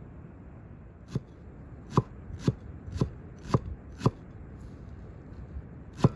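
Large chef's knife chopping fresh green onions and cilantro on a thick wooden log-slice board, each stroke a sharp knock of the blade on the wood. There are about six chops at roughly two a second, a pause of about two seconds, then one more chop at the end.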